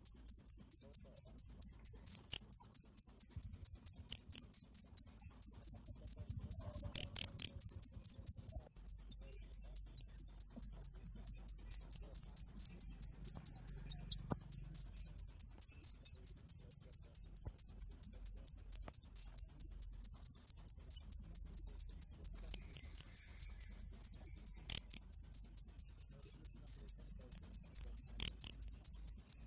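A cricket chirping loudly and steadily, about four short high-pitched chirps a second, with a brief break about nine seconds in.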